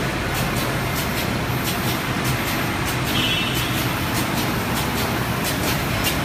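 Dakiou PY-950 roll-fed die cutting and creasing machine running, a steady mechanical din with a low hum and frequent sharp clicks as it feeds paperboard from the roll and cuts.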